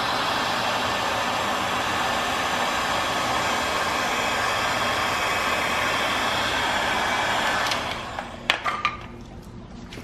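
Porter-Cable electric heat gun blowing steadily as it shrinks heat-shrink tubing on a wire. It is switched off about eight seconds in, and a few clicks and knocks follow.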